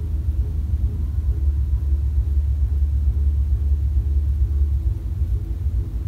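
Low, muffled bass of loud party music carrying through the cabin from the ship's aft Spice H2O deck: only the deep thump comes through, with the higher parts of the music lost.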